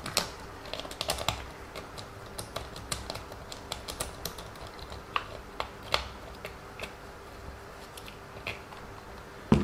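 Irregular light clicks and taps of small plastic and metal parts being handled as the wheel is taken off a 1/14 WLToys 144001 RC car.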